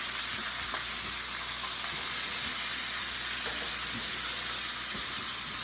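Burger patty sizzling in a hot pan: a steady, even hiss.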